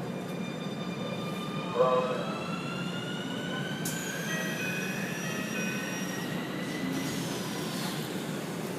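Keikyu N1000-series electric train's Toyo Denki IGBT VVVF inverter and MB-5121-A traction motors whining as the train accelerates, heard from inside the car. Several tones rise together in pitch, one jumps high and then falls about four seconds in, and the tones fade near the end, over a steady running rumble. This set is known for its abnormally loud motor noise.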